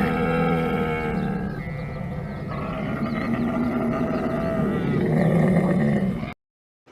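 Camel calling: a loud, low, drawn-out vocalization that runs on almost without a break and cuts off abruptly about six seconds in.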